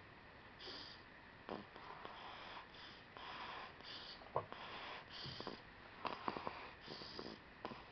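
Snoring and snuffling breaths of a sleeping two-month-old, a soft breath roughly once a second with a few short, sharper snorts among them.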